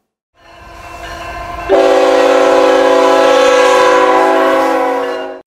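A low rumble builds up, then a locomotive air horn sounds one long, steady chord of several notes from just under two seconds in, easing off slightly before it cuts off near the end.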